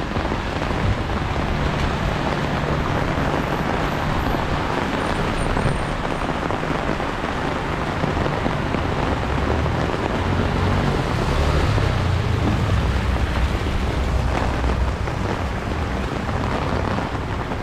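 Steady, dense rain noise with a motor vehicle's engine running underneath, the engine's low sound growing stronger a little past halfway through.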